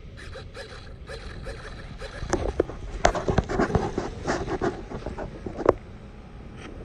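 Irregular crunching and rustling of footsteps on dry grass and sandy ground, heaviest from about two seconds in until just before six seconds.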